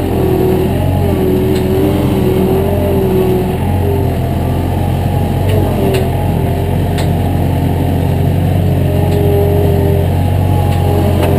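A motor vehicle's engine running steadily just after starting, with a low steady hum and a wavering whine on top.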